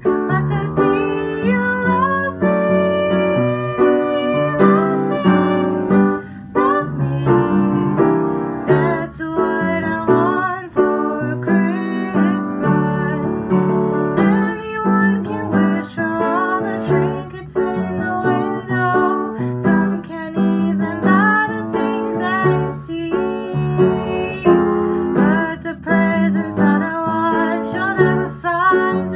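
Upright piano played with a woman singing over it.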